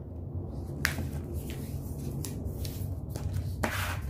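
A square of colored origami paper being folded by hand along its diagonal and creased flat. It gives a few crisp clicks and snaps, then a short rustle near the end.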